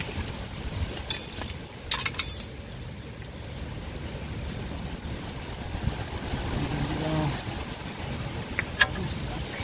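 Hand tools clinking against metal under a car: one sharp metallic clink with a brief ringing about a second in, two more in quick succession about two seconds in, and a fainter click near the end.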